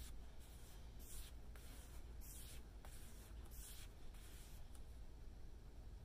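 Paintbrush stroking a wet coat of liquid wood across a furniture top: faint, short, scratchy swishes, about five in the first four seconds.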